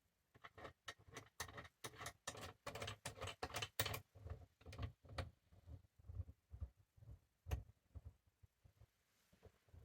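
Sight pusher being worked with a wrench to press a new rear sight into the pistol slide's dovetail: a run of light metal clicks and ticks, several a second, thinning out after about four seconds, with one sharper click near the end.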